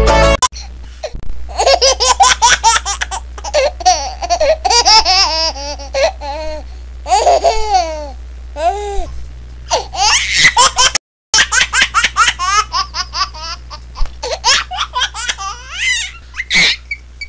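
Hearty laughter in repeated bursts, with a brief break about eleven seconds in.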